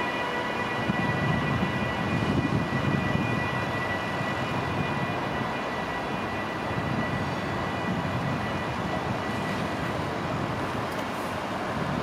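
Vy (NSB) El18 electric locomotive running light and moving slowly away: a steady high electrical whine over a low rumble of its wheels on the rails.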